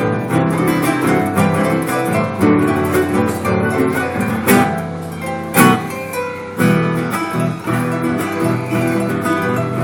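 Acoustic guitar playing a fast run of plucked notes, with two sharp strummed accents about halfway through.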